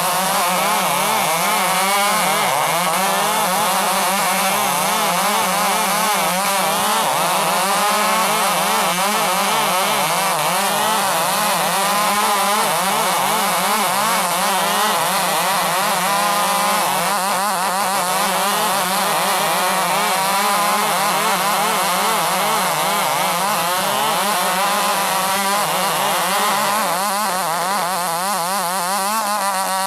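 Large 105cc chainsaw running hard under load as it saws through timber, its engine pitch wavering up and down continuously as the chain bites.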